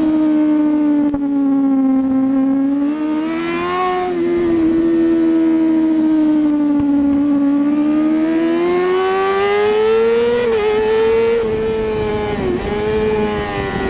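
Kawasaki ZX-6R's 636 cc inline-four engine at high revs, heard on board with wind rush; the pitch sags through the corner, then climbs steadily under throttle, with two quick dips in pitch near the end.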